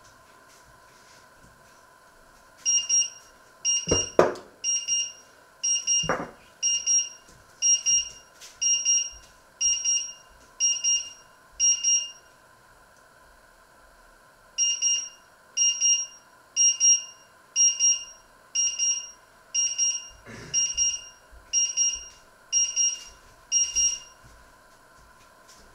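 Electric hob's timer alarm going off: short, high beeps about once a second that break off for a couple of seconds midway and then resume, signalling that the set cooking time has run out. A few dull knocks sound under it, two in the first seconds and one more later.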